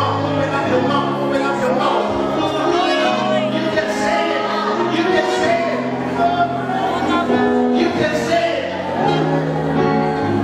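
Live gospel worship music: held chords under singing, steady and unbroken.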